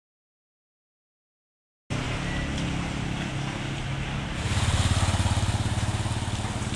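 About two seconds of silence, then a motorcycle engine running as it rides through floodwater, with water sloshing around it. The engine grows louder about four and a half seconds in as the bike comes close.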